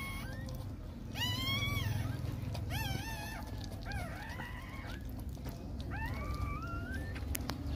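Newborn puppies squealing and whimpering as they jostle to nurse: about five short, high-pitched, rising-then-falling cries, over a steady low rumble.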